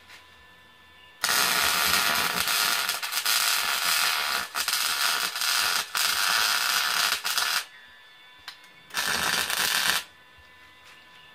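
Arc welding: the arc crackles steadily for about six seconds with a couple of brief breaks, stops, then strikes again for a short weld of about a second.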